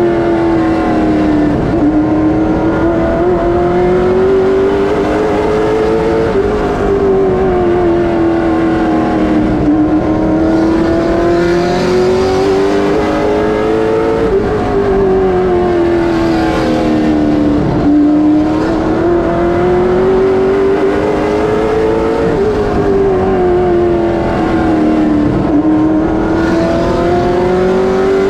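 NASCAR late model stock car's V8 racing engine, heard from inside the cockpit. The pitch climbs steadily under full throttle down each straight, then drops sharply as the driver lifts into each corner, three to four times over the laps.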